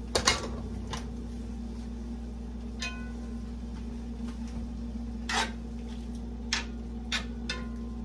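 A metal utensil clinking against a pot about seven times at uneven intervals, a couple of the clinks ringing briefly, over a steady low hum.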